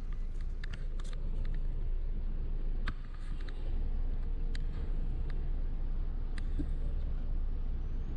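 Car cabin noise while creeping forward at low speed: a steady low rumble of engine and tyres, with a few faint light clicks scattered through it.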